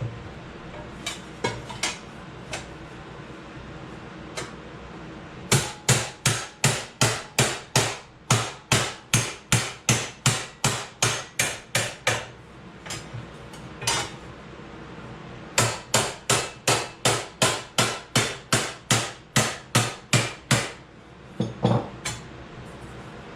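Hammer blows on sheet metal being shaped: a few scattered strikes, then two long runs of steady blows, about three a second, with a short pause between them.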